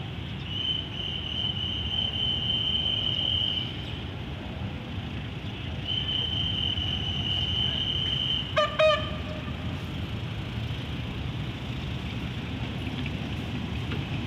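Diesel locomotive approaching, its engine a low distant rumble, giving two short horn toots about eight and a half seconds in. A high steady tone also sounds twice before the toots, each time for about three seconds.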